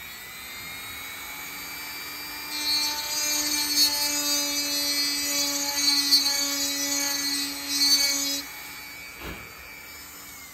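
Handheld rotary multi-tool with a small bit grinding into the wooden tote of a hand plane, opening up the counterbore at its top. The motor's whine rises as it spins up, the grinding runs from about two and a half seconds in to about eight and a half, and the whine falls away as the tool winds down near the end.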